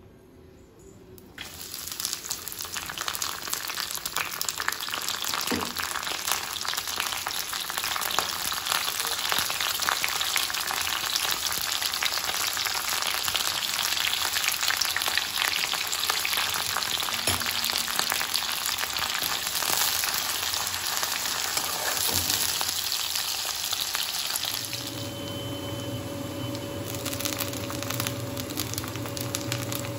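Chopped onions, green chillies and curry leaves hit hot oil in a kadai about a second and a half in and sizzle loudly. The sizzle eases off near the end as a steady low hum comes in.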